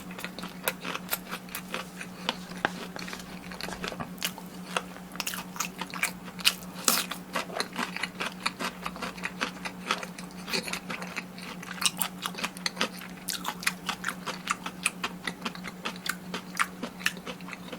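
Close-miked biting and chewing of crispy fried food: a continuous run of sharp crunches and wet chewing, with a faint steady hum underneath.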